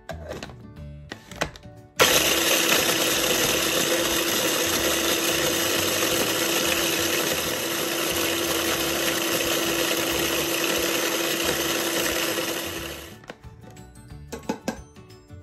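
Small electric mini food chopper grinding dried red chilies: a steady motor whine with the blades churning, starting abruptly about two seconds in and stopping about two seconds before the end.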